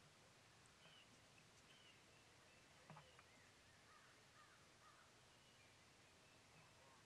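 Near silence with faint, scattered bird chirps and calls, and one soft knock about three seconds in.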